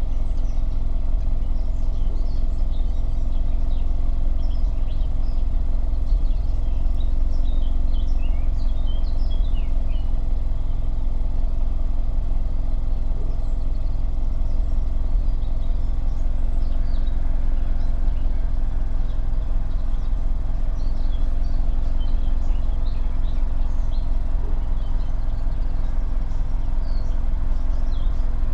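Volkswagen Golf VI's 1.2 TSI turbocharged four-cylinder petrol engine idling steadily, heard at the exhaust pipe. Birds chirp now and then over it.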